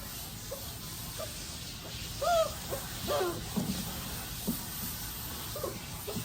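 A puppy whimpering in short, high, wavering whines, a few a second apart, as it is rinsed in a bath it dislikes, over the steady hiss of water from the sprayer.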